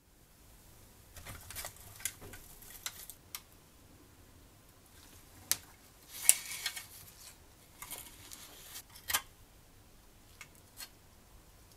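Scattered light clicks, taps and rustles of gloved hands handling a rusty die-cast model car. The loudest is a short scraping rattle about six seconds in.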